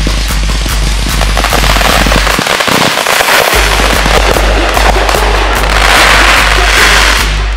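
Consumer aerial fireworks going off in a rapid finale barrage: many shells bursting and crackling densely, heaviest about six seconds in. Under it runs electronic music with a steady bass beat that drops out for about a second near the middle.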